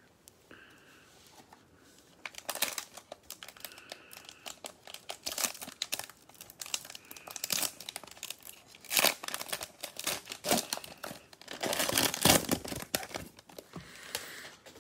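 Plastic cello wrapper of a trading-card pack being torn open and crinkled in the hands, in irregular bursts of crackling that start about two seconds in and are loudest near the end.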